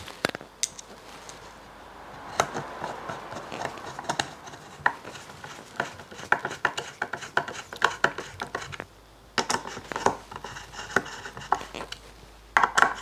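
A hand screwdriver turning small machine screws through an MDF template into the threaded shafts of a router lift, with short metal clicks and scraping as the screws are started. Sharper clicks and knocks come near the end.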